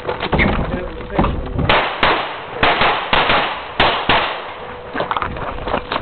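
A string of about nine pistol shots fired during a practical-shooting stage. The shots come at uneven spacing, some as quick pairs about a third of a second apart.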